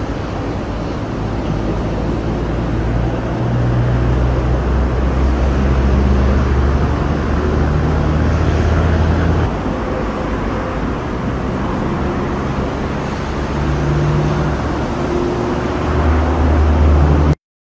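Steady low rumble of engines, its pitch shifting a couple of times, cutting off abruptly near the end.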